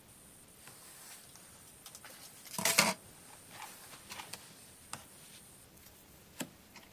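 Hands handling and fitting computer hardware: scattered light clicks and taps, with one louder, brief rustling clatter a little under three seconds in.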